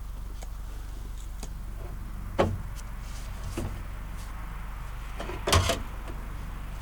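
Light knocks and clicks of a bent sheet-metal patch panel being handled and held up for a test fit. There are two louder knocks, about two and a half seconds in and near five and a half seconds, over a steady low hum.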